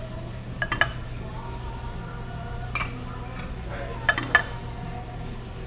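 Dishes and cutlery clinking at a dining table: a couple of sharp clinks about a second in, another near the middle, and a quick cluster at about four seconds, over a low steady hum.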